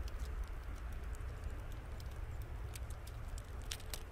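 Ice pellets from an ice storm ticking irregularly on the icy ground and the camera, over a steady low rumble.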